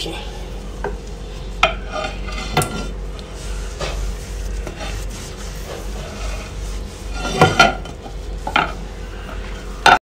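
A sponge cloth rubbing and wiping a wet glass microwave turntable plate, with scattered short knocks and clinks as the glass plate is handled. The handling is loudest about seven and a half seconds in.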